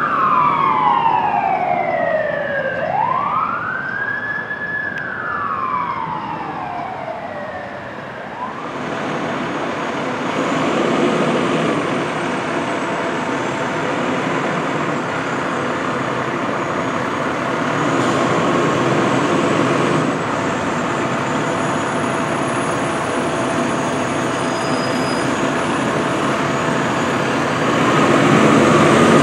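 Fire truck siren wailing in repeated rising and falling sweeps, which stop suddenly about eight seconds in. Then the diesel engine of an American LaFrance Eagle ladder truck runs steadily in the station bay, getting louder near the end.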